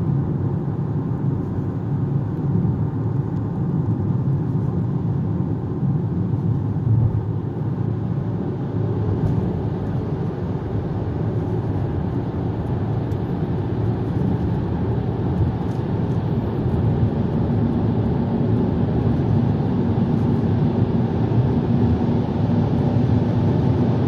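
Steady road and engine noise of a Haval Jolion crossover driving along, heard inside the cabin as a low, even rumble of tyres on asphalt.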